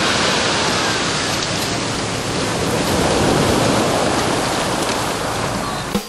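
Small sea waves washing onto a pebble beach and draining back between the stones, a steady rush of surf.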